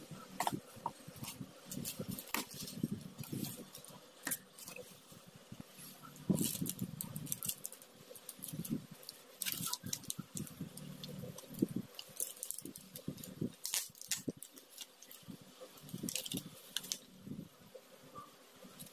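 Unpacking handling noise: plastic wrapping crinkling and rustling in intermittent bursts, with light clicks and knocks from MDF coasters and bagged paint bottles being handled.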